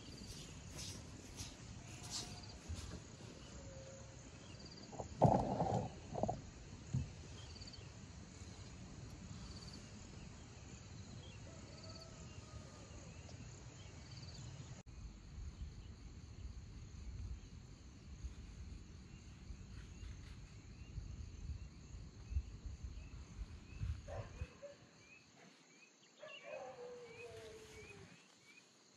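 Crickets and other insects chirring steadily, with scattered bird chirps and a low background rumble. A brief louder noise comes about five seconds in.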